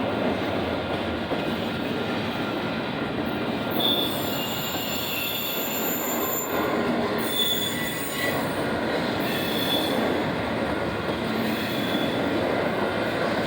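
Union Pacific intermodal freight train rolling past, a steady rumble of wheels on rail, with high-pitched wheel squeals that come and go from about four seconds in.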